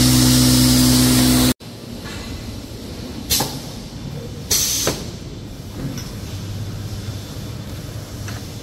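Z-fold hand-towel folding line running steadily with a low hum, cut off abruptly about a second and a half in. Then, over quieter workshop noise, two short hisses of compressed air from the pneumatic cylinders of a towel-inserting machine; the second hiss is a little longer.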